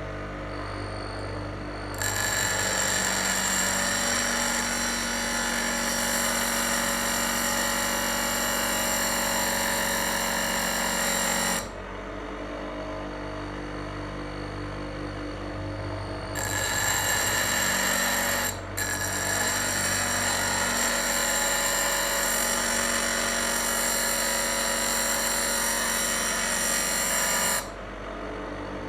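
Grinder with a stone wheel running, and a steel knife blade pressed against the stone in two long grinding passes of about ten seconds each, giving a loud high ringing grind over the motor's steady hum.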